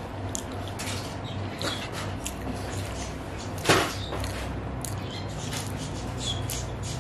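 Eating sounds: chewing with the mouth closed and fingers pinching and gathering food on a plate, in small scattered clicks, with one louder sharp sound a little past halfway, over a low steady hum.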